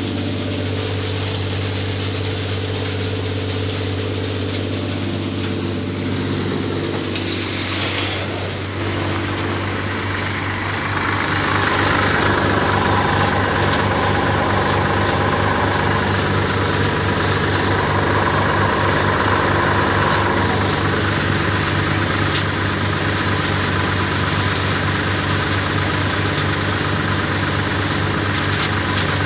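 Tractor's diesel engine driving a Narmada hydraulic thresher that is threshing chickpea plants, both running steadily with a constant hum and rattle. About a third of the way in the sound grows louder, with more machine rattle over the engine.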